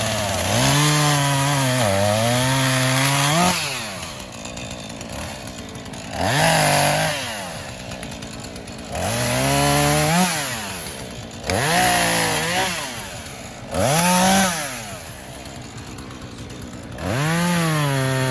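Husqvarna two-stroke chainsaw cutting wood: it is throttled up to full revs six times in bursts of one to three seconds, the pitch sagging as the chain bites, and drops back to idle in between.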